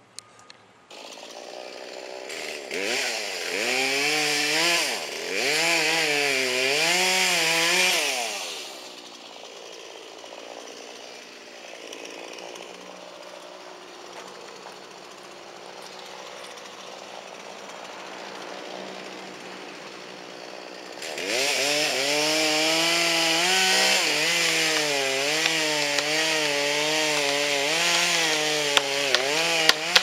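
Poulan chainsaw revving repeatedly, its pitch swinging up and down. It drops back to a lower, steadier idle for about twelve seconds in the middle, then runs at high revs again, pitch wavering, for the last third.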